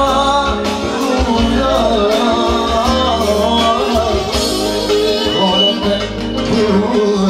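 Live band playing dance music, a melodic singing line over a steady pulsing bass.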